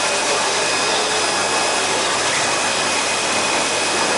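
Steady rushing hiss of running water and aeration in live-seafood tanks, with a faint hum and a thin high whine underneath.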